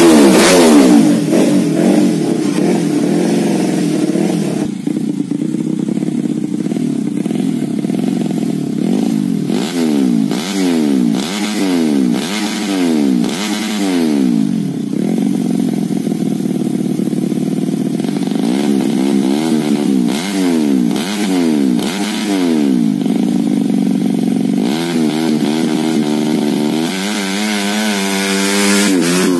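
Yamaha Jupiter motorcycle's tuned single-cylinder four-stroke engine revved again and again while ridden, its pitch rising and falling about once a second, with a longer climb in revs near the end.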